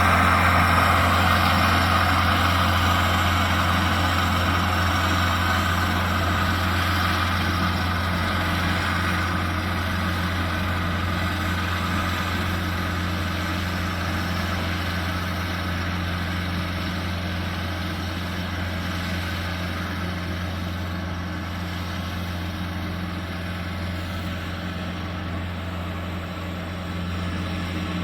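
Rippa NDI680 skid steer's 2.8-litre Cummins diesel engine running steadily with a low hum, slowly growing fainter.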